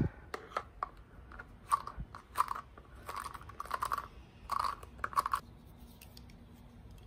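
Fingers pulling clumps of cat fur off the wire pins of a slicker brush: a series of short scratchy rasps, bunched between about one and a half and five and a half seconds in, after a single knock at the very start.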